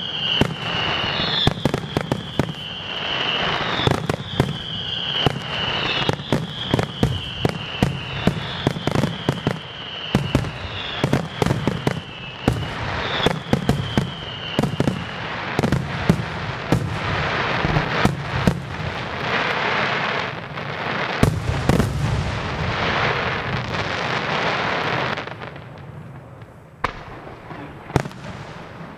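Aerial fireworks display by the Luigi Di Matteo pyrotechnics firm: rapid shell bursts and bangs over dense crackling. Through the first half a high whistle repeats about once a second. Near the end the barrage thins and quietens for a few seconds before more bangs follow.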